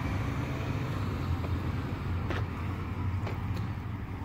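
Road traffic noise from the adjacent street: a steady low rumble, with a couple of faint clicks near the middle.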